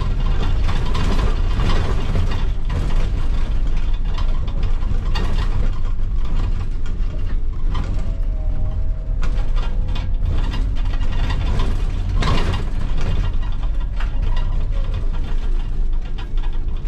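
Inside a former route bus as it drives slowly: the diesel engine rumbles low under constant rattling and clicking from the cabin fittings, doors and windows.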